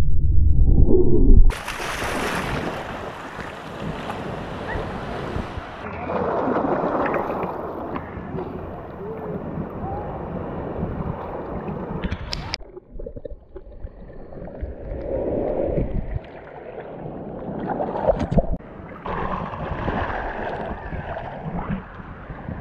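Ocean waves breaking over a camera in the shore break. It starts as a muffled underwater rumble, then about a second and a half in switches suddenly to the hiss and splash of surf at the surface. The surge of water rises and falls, briefly muffled again now and then.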